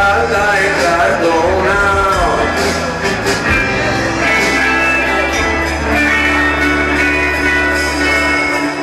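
Live rock band playing electric guitars, bass and drums, heard loud from the audience. A melody line bends up and down in pitch over the first few seconds, then the band settles into steady sustained chords.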